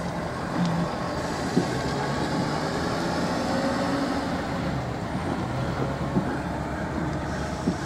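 Golf cart driving on pavement: steady motor and road noise with a low hum that shifts in pitch, and a few short knocks from bumps or rattles.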